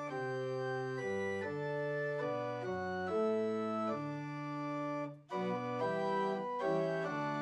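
Organ playing slow music in sustained chords that change every half second to a second, with a brief break between phrases about five seconds in.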